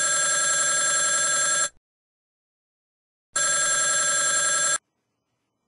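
Telephone ringing twice: a ring that stops about a second and a half in, then a second ring after a pause of nearly two seconds.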